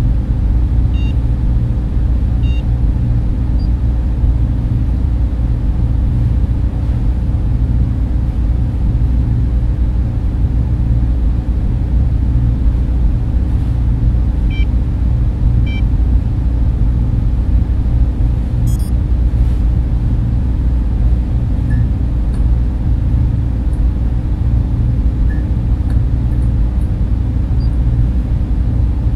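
Steady, heavy server-room drone: the low hum of server machines and the rush of cooling fans and air ducts. Short high electronic beeps sound a few times over it, with a brief patter of faint clicks about two-thirds of the way through.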